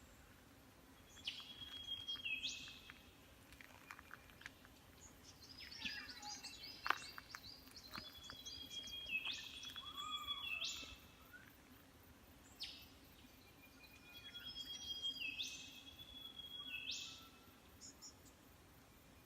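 Wild birds singing: three times a long steady whistle ends in a sharp upward snap, with a burst of other chirps and calls in between.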